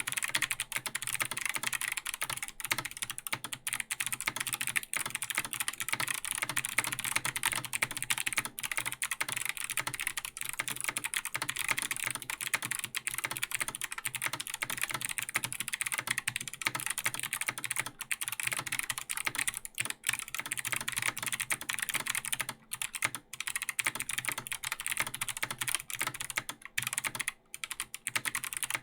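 Fast continuous typing on a Logitech G Pro X mechanical keyboard with Kailh Box Jade clicky switches and ABS keycaps: a rapid stream of crisp, high clicks with a few short pauses near the end.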